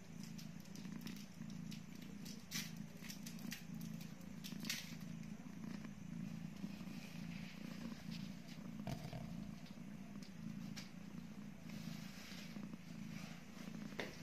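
Mother cat purring steadily, a low rumble in even pulses, while her newborn kittens nurse; a few faint clicks.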